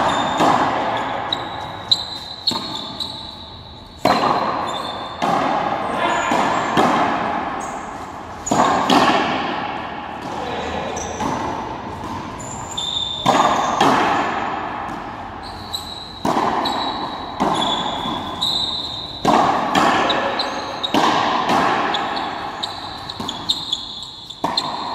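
Frontenis rally: rackets striking the rubber ball and the ball smacking off the frontón's walls and floor, a sharp crack every second or two. Each hit rings out in the echo of the enclosed court.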